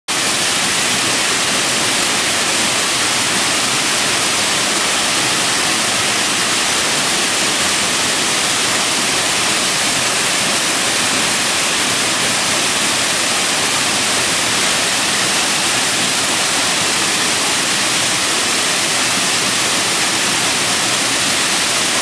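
Steady rush of the Upper Vernal Fall waterfall on the Merced River, pouring over granite: a loud, even hiss that does not let up.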